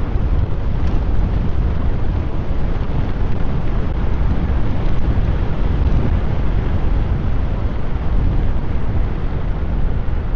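Steady rush of wind and road rumble from riding an electric scooter at speed, heaviest in the low end.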